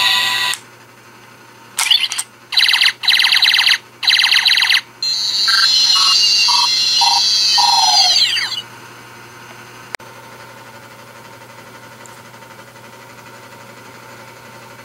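Ben 10 Reboot DX Omnitrix toy playing its electronic sound effects: three pulsing electronic bursts, then a sustained electronic tone with five short beeps stepping down in pitch, ending in a falling sweep about eight and a half seconds in. After that only faint hiss remains.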